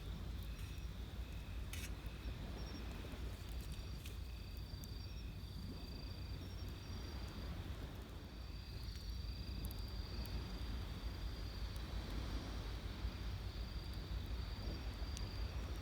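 Night insects chirping, short high notes repeating about twice a second, with a few sharp pops from a wood campfire over a steady low rumble.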